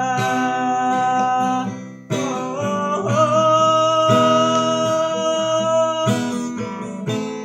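Acoustic guitar strummed under a singer holding long drawn-out notes: one fading out about two seconds in, then a second held from about three seconds in until near six seconds.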